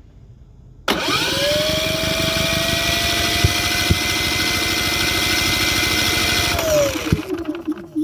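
The electric starter of a Cummins P4500i inverter generator cranks its engine for about six seconds, and the engine never catches: a no-start. The starter whine spins up quickly, holds steady over rapid, even compression pulses, then winds down in falling pitch.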